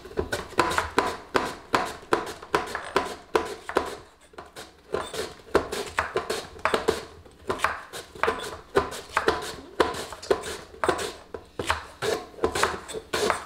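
Kitchen knife chopping green onions on a wooden cutting board: a steady run of knocks, about three or four a second, with a short pause about four seconds in.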